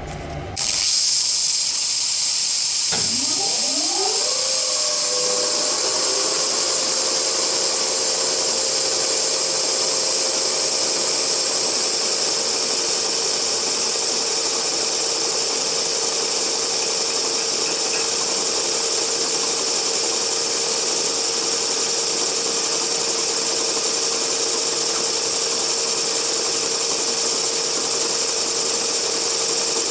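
Metal lathe starting up: a loud hiss comes on almost at once, and about three seconds in the motor's whine rises in pitch as the spindle comes up to speed, then holds a steady tone as the lathe runs.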